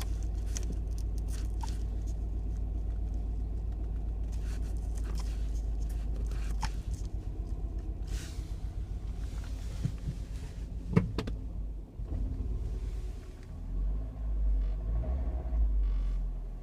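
Mini Cooper R55 John Cooper Works 1.6-litre turbocharged four-cylinder engine running with a steady low rumble that turns uneven and dips about seven seconds in, then surges near the end as the throttle is pressed. It is misfiring on cylinders 1 and 3, a fault the owner traced to a failing high-pressure fuel pump.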